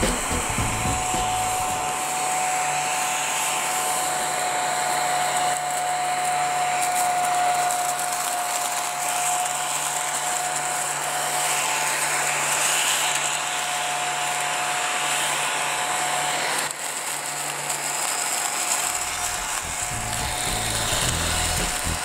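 Mini ladybird desktop vacuum cleaner running: its small motor gives a steady whirring with a high whine as it is pushed over scraps of paper.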